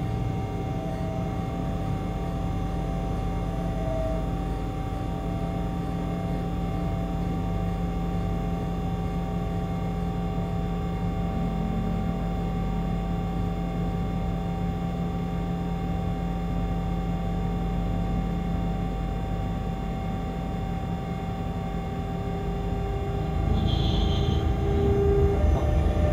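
Electric locomotive standing after a PZB forced brake stop, heard inside the cab as a steady machine hum with several constant tones. Near the end the low rumble grows louder and rougher as the locomotive starts to move off, with a brief high beep about a second later.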